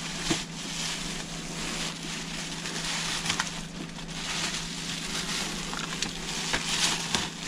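Cardboard packaging of a mini split head unit being handled: crinkling and rustling with a few light knocks, over a steady low hum.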